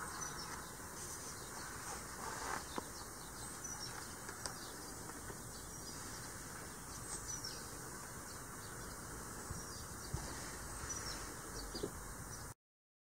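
Outdoor ambience with small birds chirping now and then and a few soft clicks, cutting off suddenly near the end.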